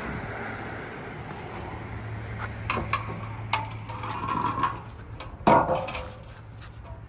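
The removed stock exhaust of a 2020 Honda Accord, a steel pipe with resonator and two rear mufflers, clanking and scraping on asphalt as it is lifted and dragged. There are several metal knocks, the loudest a little after five seconds in.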